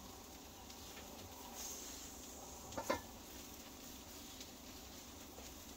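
Faint background noise broken once, about three seconds in, by a short sharp knock heard as a quick double click.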